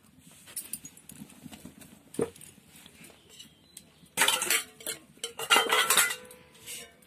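Steel pots and dishes clattering and clanking against each other, in two loud spells in the second half, with a metallic ringing after the knocks. A single knock comes about two seconds in.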